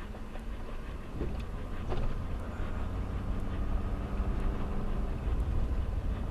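A vehicle travelling along a road: steady road and motor noise with a heavy low rumble.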